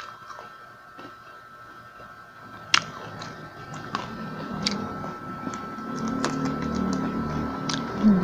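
Someone biting and chewing a crispy deep-fried turon, a jackfruit and sticky-rice spring roll. The fried wrapper gives scattered crunches and crackles, with a low muffled chewing sound that grows in the second half.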